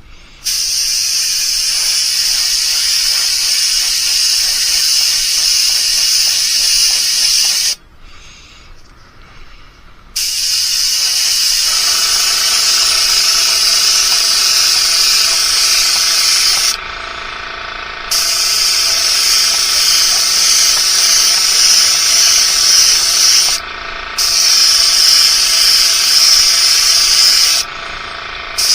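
Paint being sprayed onto a fishing lure, a steady hiss in long bursts of several seconds. It stops for about two seconds near a third of the way in and dips briefly three times later on, and a faint steady hum sits under the hiss in the second half.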